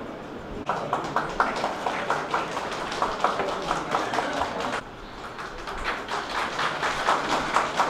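A small audience clapping in two rounds, with a short break about five seconds in.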